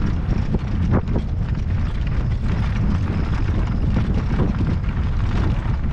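Wind buffeting the microphone in a steady low rumble, with a horse's hoofbeats on the ground.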